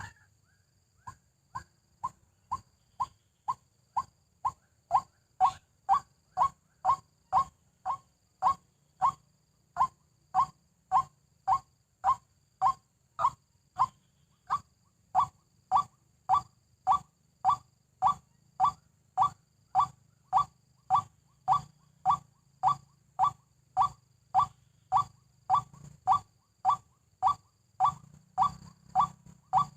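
White-breasted waterhen call: a single short note repeated about twice a second in a long, regular series. It starts faint and grows louder over the first few seconds.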